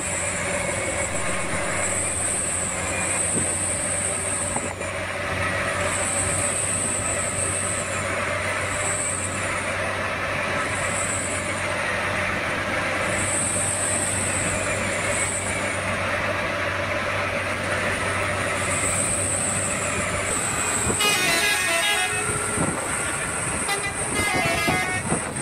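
Toy bus's electronic horn and engine sound effects, a tinny tooting over a steady hum, the 'telolet' horn sound. The high tooting comes and goes every second or two, and near the end the sound turns quicker and choppier.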